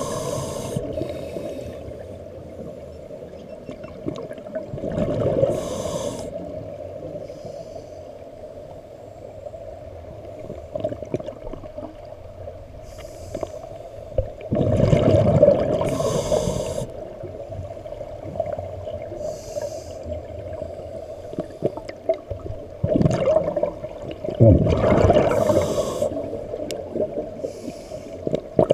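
A scuba diver's regulator breathing, heard underwater: hissing inhalations and rumbling gushes of exhaled bubbles every few seconds, over a steady muffled underwater rumble.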